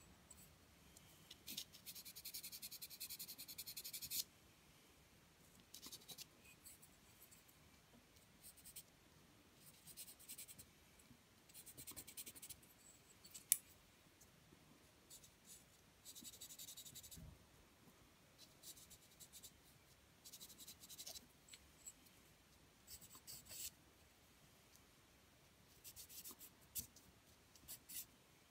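Faint scratching of a pencil on paper, short shading strokes that come in bursts, with a longer run of quick strokes a couple of seconds in. A single sharp tick sounds about halfway through.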